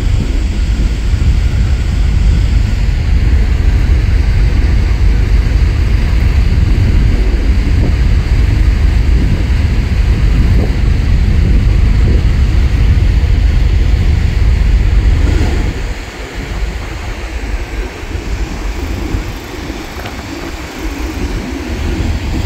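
Wind buffeting the microphone on the open deck of a ferry under way: a heavy, gusty low rumble that eases suddenly about fifteen seconds in.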